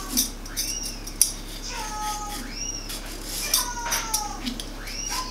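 A vegetable peeler scraping along yellow summer squash in quick repeated strokes. High squeaky tones that rise and fall or slide down come every couple of seconds.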